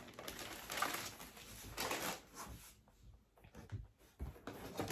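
Rustling and crinkling of product packaging being handled, in several short, irregular spells.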